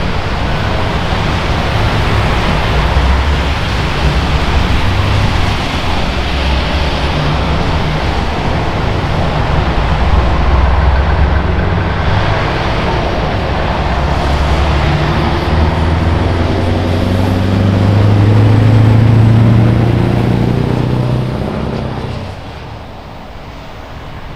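Scania 164L 480's V8 diesel engine pulling away in traffic, with a deep exhaust note over the hiss of passing vehicles on a wet road. The engine pitch rises as it accelerates and is loudest about three quarters of the way through, then falls away quickly near the end as the truck moves off.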